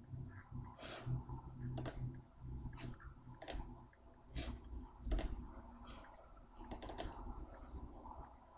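A computer mouse clicking about nine times, at irregular intervals of roughly a second, with two clicks close together near the end, over a faint low hum.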